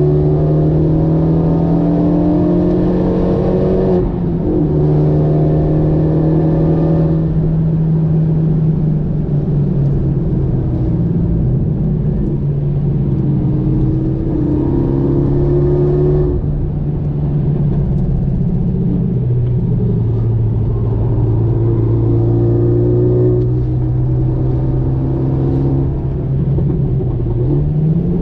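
Renault Mégane 3 RS 275 Trophy's 2.0-litre turbocharged four-cylinder engine, heard from inside the cabin while the car is driven on track. The engine drone holds a fairly steady pitch that drops a few times, then climbs sharply near the end. Tyre and road noise runs underneath.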